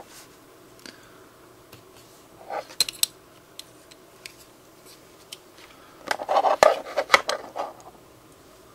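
Clinking, clattering of small hard objects: a few light clicks, a short clatter about two and a half seconds in, and a longer, louder clatter about six seconds in.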